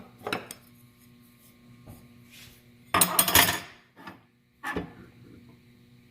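Metal clinks, knocks and scraping as a square is handled against the miter saw's blade and table to check the blade for square: a knock near the start, a louder half-second of scraping and clatter about three seconds in, then two more short knocks.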